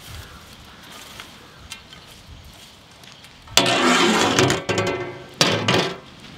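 Large metal spatula stirring a heaped pot of sliced apples, scraping against the metal pot: a loud stroke of about a second, then a shorter one near the end, after a few seconds of low background.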